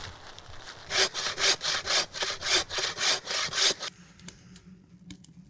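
A hand saw cutting through wood in quick back-and-forth strokes, about four a second, which stop about four seconds in.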